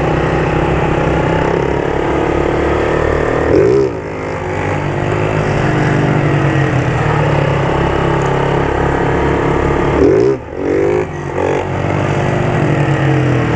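Small single-cylinder motorcycle engines running in gear. The pitch climbs under throttle and drops sharply twice, about four seconds in and about ten seconds in, as the throttle is shut.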